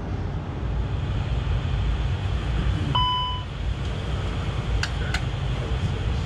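Steady low rumble of an Airbus A320 flight simulator's cockpit. About halfway through comes one short electronic beep, and near the end two sharp clicks.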